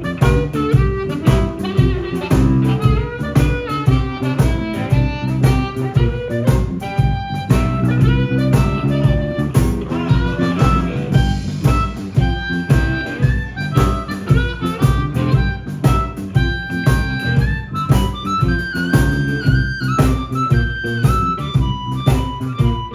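Live blues band playing a slow, steady shuffle groove: drums, electric bass and guitar, with harmonica held and bent notes over the top.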